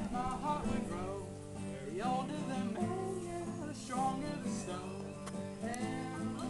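Acoustic guitar played live with a voice singing along.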